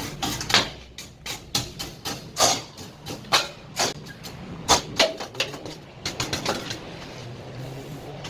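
Irregular knocks, clicks and scraping from hands and tools working on the opened dryer's parts during cleaning, a few knocks much louder than the rest.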